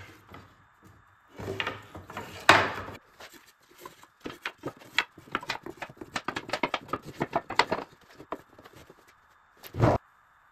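Pine slats being handled by hand, knocking and clattering against each other and the workbench as they are laid side by side. There are heavier knocks about two and a half seconds in and again near the end, with a run of quick, light clicks in between.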